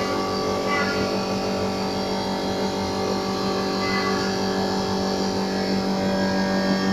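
Cosen CNC315S automatic wood turning lathe running steadily, a constant machine hum with a strong low tone and several higher steady tones over a hiss, without change in pitch or level.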